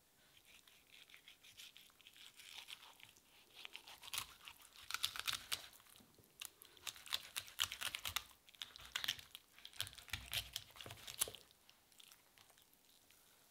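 Knife cutting through raw salmon on a plastic cutting board: close-up crackling crunches and tearing as the flesh is pulled back. It is busiest from about four seconds in and fades out near the end.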